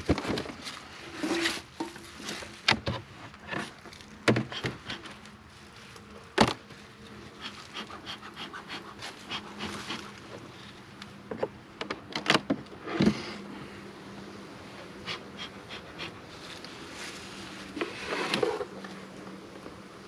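Honeybees buzzing in a low, steady hum as their hive is opened, the hum becoming clear about a third of the way in. Sharp knocks and short scrapes of wooden hive parts being handled come over it, the loudest near the start, in the middle and near the end.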